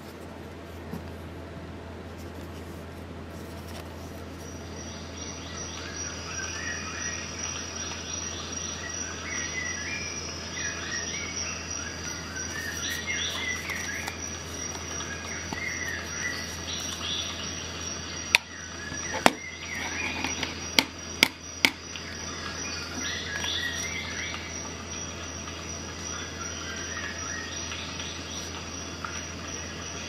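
Insects chirring in a steady high pulsing tone, with birds chirping over it, fading in over the first few seconds. About eighteen seconds in, a handful of sharp clicks within a few seconds stand out as the loudest sounds.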